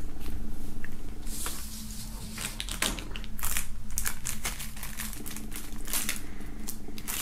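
Plastic shrink-wrap on a CD jewel case being slit with a knife and peeled off, crinkling with many irregular sharp crackles and clicks.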